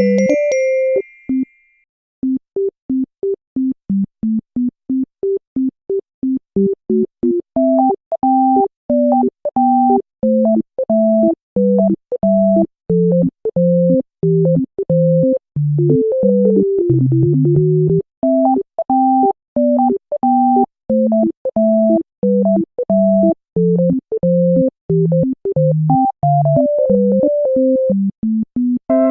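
Background music: a bouncy synthesizer tune of short, clipped notes over a bass line, pausing briefly about two seconds in.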